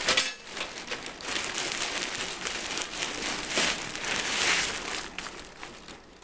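Thin plastic bags crinkling and rustling as they are handled: a black plastic bag pulled off a white plastic mailer and the mailer smoothed flat by hand. A sharp crackle comes right at the start, and the rustling dies down near the end.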